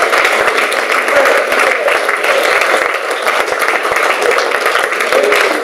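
A crowd applauding, with voices mixed in.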